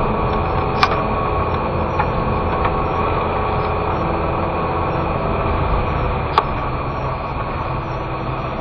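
Car engine and road noise heard from inside the cabin while driving: a steady hum, with two sharp knocks, about a second in and about six seconds in.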